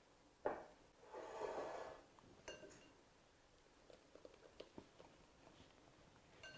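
Quiet mixing-bowl sounds as wet cornmeal batter is added to the dry ingredients. A knock comes about half a second in, then about a second of soft scraping, then light clinks and taps of a utensil against the bowl.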